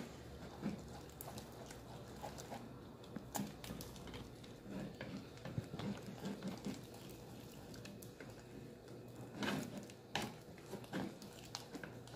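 A spoon stirring and scraping a thick, stiffening cornstarch biscuit dough in a metal saucepan. It makes irregular squelches and scrapes with light knocks against the pan, a little louder just before the end.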